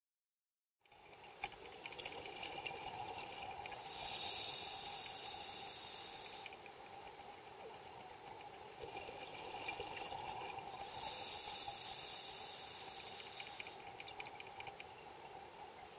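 A diver breathing through a scuba regulator, heard underwater over the camera housing's steady watery hum. Two long hissing breaths come about seven seconds apart, and the sound cuts in about a second in.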